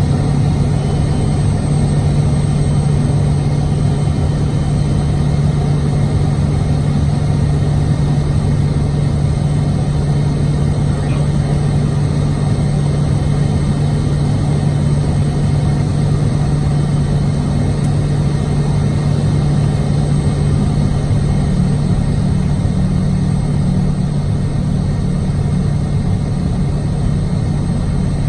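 Kodiak 100's Pratt & Whitney PT6A turboprop engine and propeller droning steadily, heard from inside the cockpit on approach, with a strong low hum from the spinning propeller.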